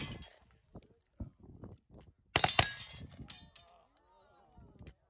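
A rifle shot at steel targets about two and a half seconds in, with the steel plate ringing right after the report.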